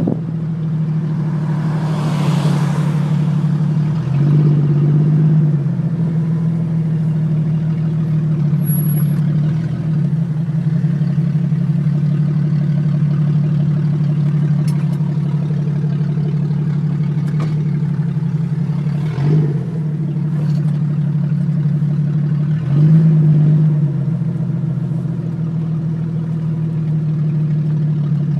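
Jeep XJ Cherokee engine running through an exhaust with no catalytic converter and no muffler: a loud, steady drone with brief swells of throttle a few times, about 4, 19 and 23 seconds in. A short burst of wind hiss about two seconds in.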